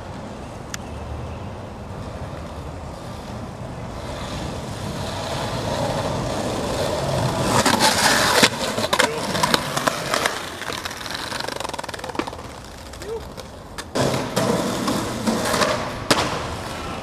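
Skateboard wheels rolling on concrete, growing louder, then the board hitting and riding a granite wall with sharp clacks and clatter about halfway through. Near the end there is a second run of sharp clacks as a flip trick is popped and landed on flat ground.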